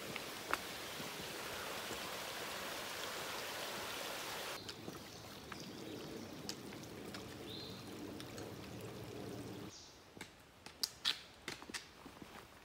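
Running water of a small stream, cut off abruptly twice. Near the end come footsteps on the trail with sharp clicks.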